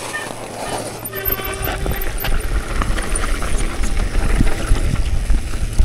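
Mountain bike setting off down a rough trail: tyres and bike rattling over the ground, with a low rumble of wind on the camera growing louder as speed builds from about a second in.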